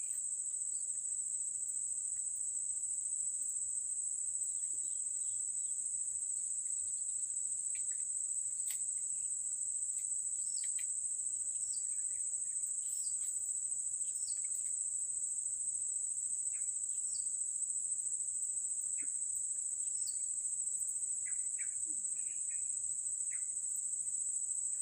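Insects droning: one steady, high-pitched, unbroken buzz, with a scattering of faint short chirps over it.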